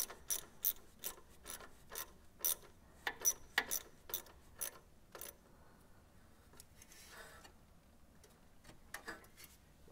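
Hand ratchet clicking in short strokes, about two clicks a second, as the fuel hose connection is tightened; the clicking stops about halfway through, followed by a brief soft rustle and a few faint clicks near the end.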